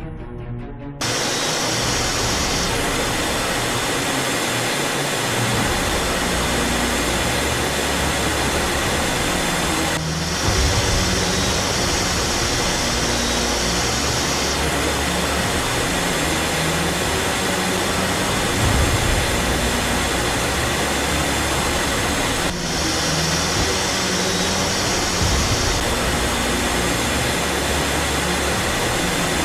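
Loud, steady jet engine roar with a shifting low rumble. It cuts abruptly to a new stretch of roar about a second in, about ten seconds in and about twenty-two seconds in.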